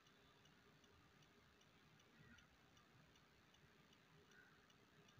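Near silence, with a faint, regular ticking.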